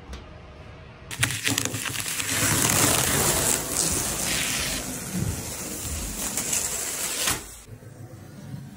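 Thin plastic masking sheet being pulled off a freshly painted car and bunched up, a loud crackling rustle that starts about a second in and stops suddenly near the end.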